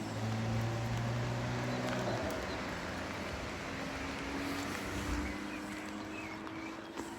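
A motor engine droning, steady for about two seconds and then slowly rising in pitch, with a few faint bird chirps.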